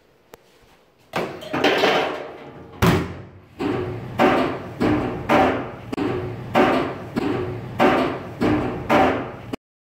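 Repeated heavy thuds with a short metallic ring, about two a second, as something tumbles and bangs around inside a running tumble dryer drum; the thudding cuts off suddenly near the end.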